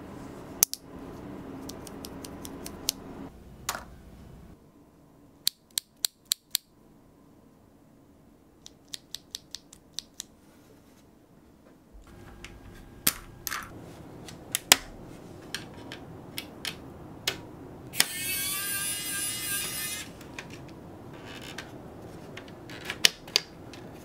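Small sharp plastic clicks and snaps from Gateron Yellow mechanical keyboard switches being opened, lubed and handled. The clicks come singly and in quick runs of four to six, with a scratchy rattle lasting about two seconds late on.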